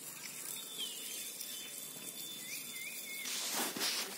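Quiet open-field ambience with a few faint short high chirps, then a burst of rushing noise about three seconds in that lasts roughly a second.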